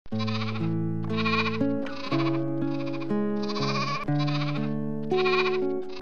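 Sheep bleating about seven times, each call about half a second long and wavering, over background music with sustained chords.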